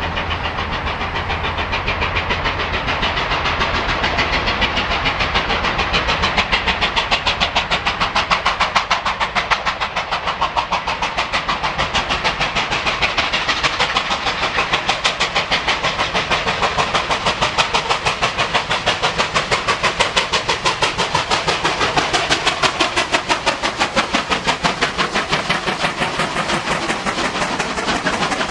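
Two NSW C38 class two-cylinder 4-6-2 steam locomotives, 3801 and 3830, double-heading and working hard uphill. Their exhausts make a rapid, even beat that carries on as they approach and pass.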